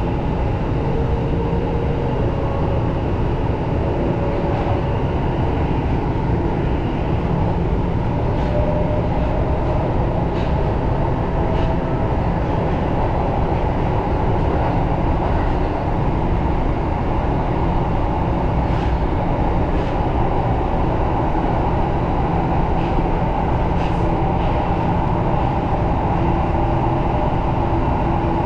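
Tokyo Metro Marunouchi Line subway train running steadily along the track: a continuous rumble of wheels on rail with a faint whine that rises in pitch during the first half, and a few light clicks.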